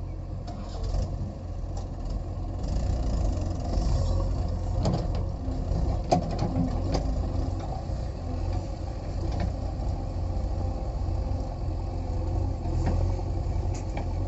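Diesel engines of a JCB 3DX backhoe loader and a Mahindra tractor running steadily as the tractor pulls a trailer loaded with soil. Occasional sharp knocks come through, the clearest about five and six seconds in.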